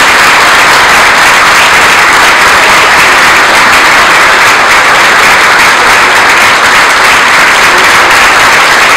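Audience applauding, a dense, steady clapping of many hands that neither builds nor dies away.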